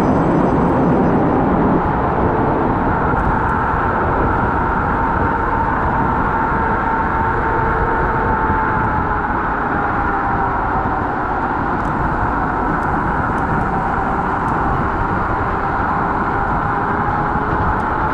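Riding noise from a Kaabo Wolf Warrior electric scooter on the road: steady wind rumble on the action-camera microphone, over which a thin whine slowly drifts in pitch with speed.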